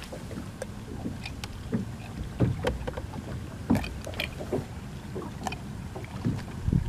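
Scattered soft knocks and rustles as a freshwater drum is handled in a landing net on a bass boat's carpeted deck, over a low steady rumble.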